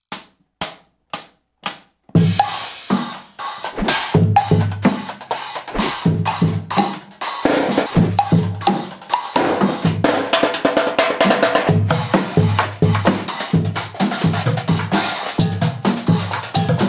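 Four sharp clicks about half a second apart count in, then a percussion band of instruments made from recycled junk (struck saucepans, a coconut shell, plastic drums) plays a steady, busy rhythm of deep thuds and bright metallic clatter.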